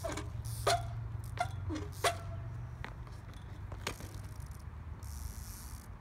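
Monty 20-inch trials bike being hopped and balanced on asphalt: a string of sharp knocks and clicks, some with short squeaks, from the wheels landing and the brakes grabbing. There is a brief hiss about five seconds in, over a steady low rumble.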